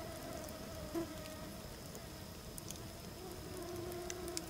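Mosquitoes whining faintly, several thin buzzing tones wavering in pitch, with a second, lower whine joining in the last second or so.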